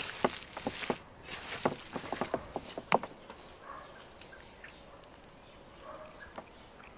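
Hands kneading raw ground meat on a wooden cutting board: quick wet squishes and slaps, busiest through the first three seconds, then softer.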